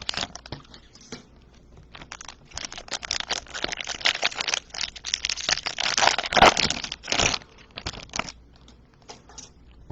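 Foil wrappers of baseball card packs being torn open and crinkled by hand: a dense run of crackling from about two seconds in to about seven seconds in, then a few scattered crinkles.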